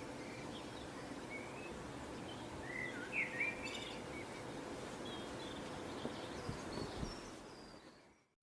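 Outdoor ambience: a steady low background hiss with scattered short bird chirps, a few louder ones about three seconds in, fading away near the end.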